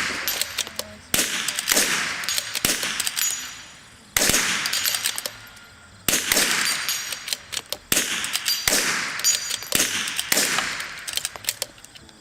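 Two rifles firing rapid, irregular shots at a steel dueling tree: about a dozen loud shots, each trailed by echo, with smaller sharp strikes of bullets hitting the steel paddles between them.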